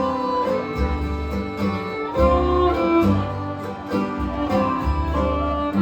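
Bluegrass band playing an instrumental passage: a fiddle holds long melody notes over acoustic guitar and low, steady bass notes.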